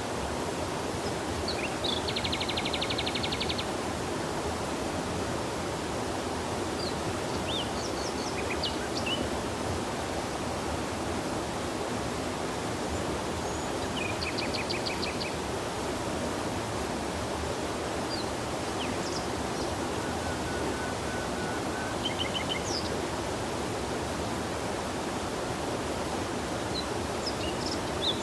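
Steady rushing of a stream or river, with a few birds calling over it: several short, rapid trills and scattered chirps.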